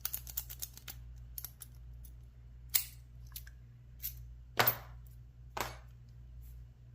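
Lock pick raking the pins of a Yale pin-tumbler padlock under tension from a bottom-of-keyway tension wrench. It makes a quick run of light metallic clicks in the first second, then scattered sharper clicks and scrapes, the loudest a little past four and a half seconds in.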